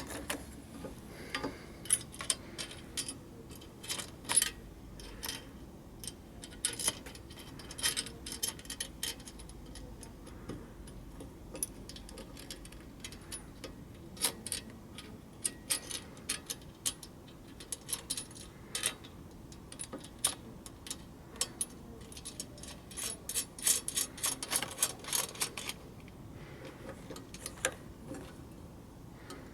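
Irregular small metallic clicks and taps as a washer and nut are fitted onto a chandelier light's threaded tube by hand, with a quick run of clicks about three-quarters of the way through.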